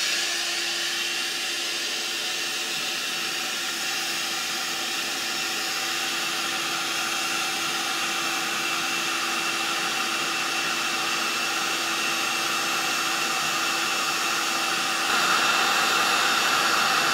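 Cheap hot-air heat gun running on its maximum setting: a steady rush of blown air with a faint hum underneath, a little louder about fifteen seconds in.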